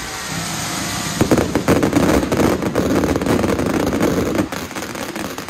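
Fireworks going off in a rapid, dense barrage of cracks and bangs, getting louder and thicker about a second in.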